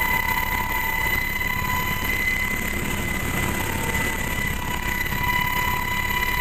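HH-60 Pave Hawk rescue helicopter running in flight: a steady high turbine whine over a low rotor and engine rumble.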